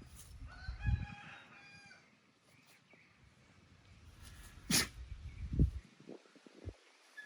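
A rooster crows once, a single pitched call lasting about a second and a half. Later there is a sharp click and a few low thuds.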